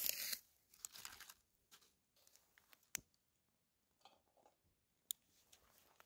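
Dry leaves rustling and crinkling as a small pile is handled and set alight. The loudest rustle comes at the very start, with scattered soft crackles and two sharp clicks about three and five seconds in.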